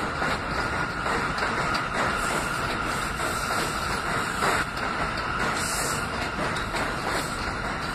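R179 subway train rolling slowly along elevated track: a steady rumble of wheels on rail with a steady high whine, and a few clicks as the wheels cross rail joints.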